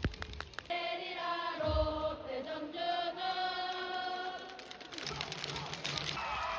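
Baseball stadium crowd singing a cheer chant in unison, with notes held for about four seconds, while clapping clicks sound around it.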